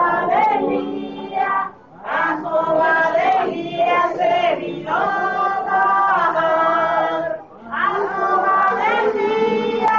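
A group of voices singing a religious hymn together, in sung lines with two brief pauses between them.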